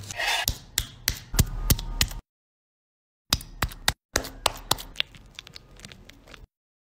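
Knife cutting and a wooden mallet pounding raw meat on a wooden cutting board: a run of sharp knocks about three a second, then after a short silence more taps that grow fainter.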